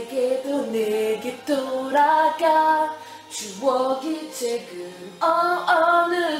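Singing with music: a voice singing a pop melody in short phrases of held notes, with little backing beneath it.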